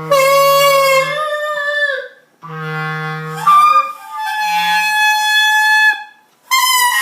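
A clarinet blown by a beginner in long, loud honks: about three held blasts with short breaks between them, the pitch jumping from note to note.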